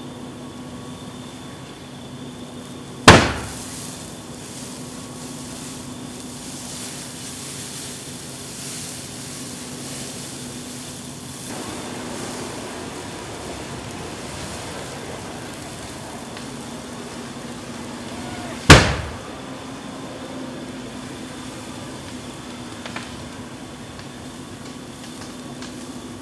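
Vehicle fire burning with a steady rushing noise and a faint steady hum, broken twice by a loud sharp bang from the burning vehicles, about three seconds in and again about eighteen seconds in.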